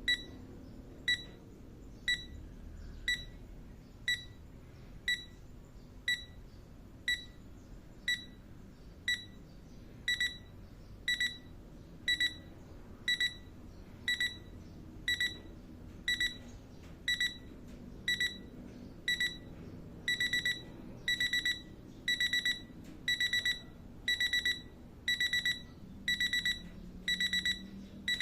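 IKEA Kupong digital alarm clock sounding its electronic beep, a high single tone about once a second. About twenty seconds in it steps up to clusters of rapid beeps, the escalating stage of an alarm left unanswered.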